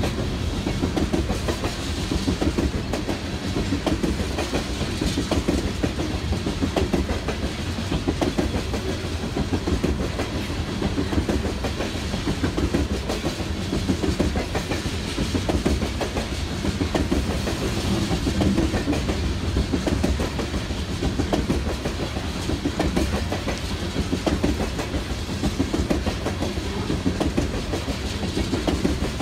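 Long freight train of gondola cars rolling past at steady speed, its steel wheels rumbling and clicking over the rails in a continuous rhythm.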